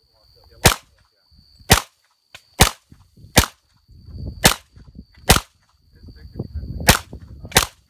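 Thompson submachine gun ('Tommy gun') fired as single shots, eight of them about a second apart, each a sharp report.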